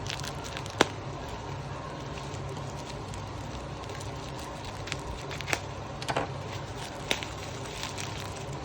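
Packaging and product being handled during an unboxing: a few sharp clicks and crackles, the loudest about a second in and a small cluster later, over a steady low background hum.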